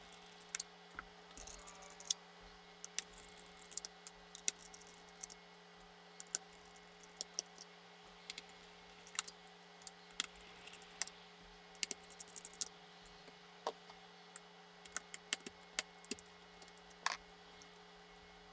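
Irregular small clicks and taps of a screwdriver and tiny screws on a laptop's internals as it is taken apart, over a faint steady hum.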